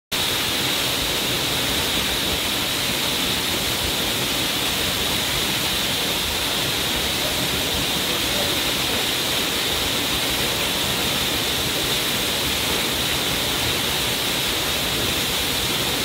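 Waterfall plunging over a rock ledge into a pool: a steady, even rush of falling water that cuts in abruptly at the start.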